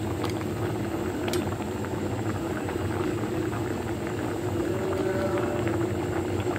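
Brown rice boiling hard in an aluminium pot: a steady bubbling over a low, constant rumble, with a few light clicks as a steel ladle stirs it.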